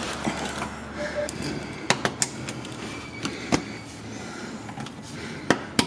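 Hand tools working on the plastic under panel's screws and clips from beneath a car: a handful of separate sharp clicks and knocks, the strongest about three and a half seconds in and near the end.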